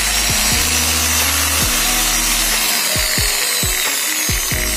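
Ryobi rotary buffing machine's electric motor running steadily at full speed, its faulty switch bypassed so it runs straight off the power. Background music with a steady beat plays underneath.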